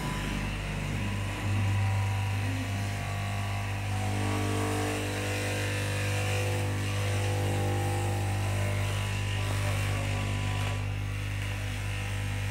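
Electric straight-knife cloth-cutting machine running with a steady motor hum, a little louder from about a second and a half in.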